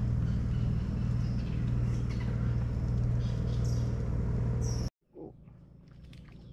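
A steady low motor drone, which cuts off suddenly about five seconds in. Then comes a much quieter stretch with a few faint ticks.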